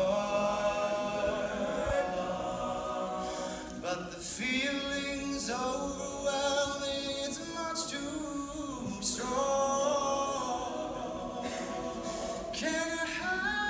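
Male a cappella group singing a slow ballad in close harmony, a lead voice on a microphone over sustained backing vocals, with no instruments.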